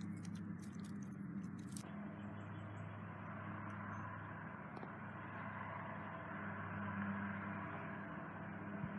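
Quiet room tone: a steady low hum under faint even noise.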